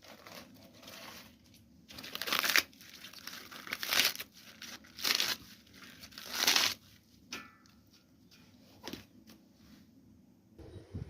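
A run of short rustling, tearing noises, with four louder ones spaced about a second apart in the middle, then quieter.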